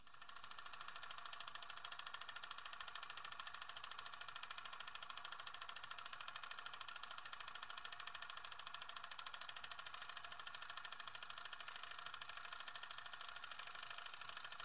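Film projector running: a steady, fast mechanical clatter over hiss.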